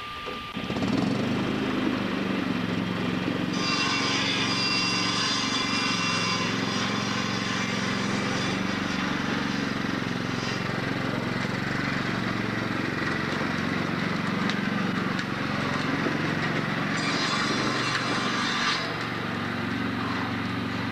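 Small engine of a John Deere riding lawn tractor running steadily, coming in suddenly about a second in. Twice a brighter, higher-pitched sound rides over it for a few seconds.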